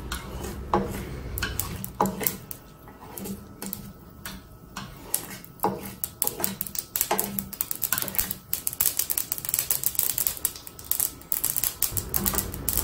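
Black mustard seeds crackling and popping in hot oil: irregular sharp clicks, sparse at first and coming thicker and faster from about halfway. This popping is the sign that the seeds are tempering in oil that is hot enough.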